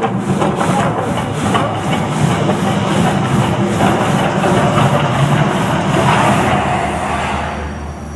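Loud, rumbling, hissing roar of a volcano show's eruption effects over its pounding soundtrack, with a steady pulse a little under three beats a second, dying away over the last second or so.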